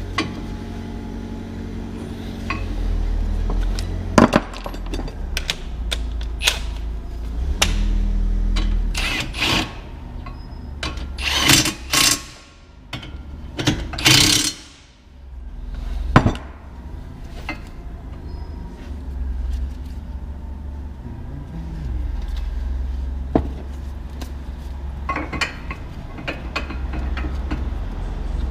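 Workshop tool noise during a front wheel bearing job: scattered metal clinks and knocks, with a few short loud bursts from a power tool, over a steady low rumble.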